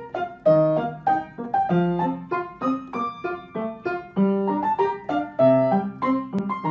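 Background music: a light keyboard melody of quick, separate struck notes, about three or four a second, over lower accompanying notes.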